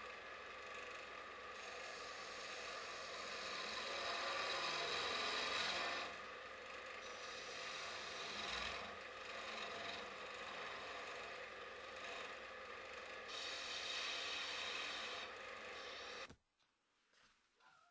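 Wood lathe running while a narrow turning tool cuts into the spinning wood: a steady scraping hiss over a faint motor hum, swelling twice as the cut deepens. It cuts off abruptly near the end, followed by a few faint clicks.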